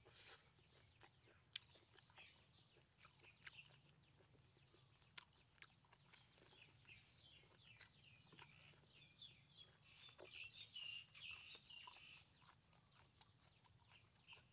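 Faint close-up chewing: soft, wet mouth clicks and smacks, busiest about two-thirds of the way through.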